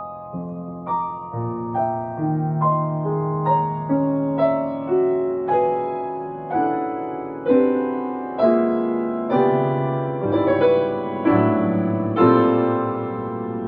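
Grand piano played solo: a slow passage of chords and single notes struck about once a second, each left to ring and die away, growing louder in the second half.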